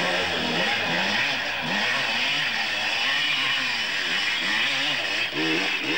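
Enduro motorcycles' two-stroke engines revving, their pitch swinging up and down about once a second as the throttle is worked.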